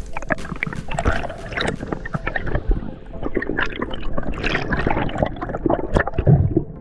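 Water gurgling and sloshing close to the microphone, with many short irregular splashes and clicks; the high sizzle dies away toward the middle.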